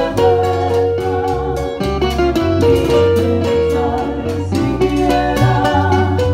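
Cuban tres played with a band: plucked melodic notes over changing low notes and sharp percussion hits.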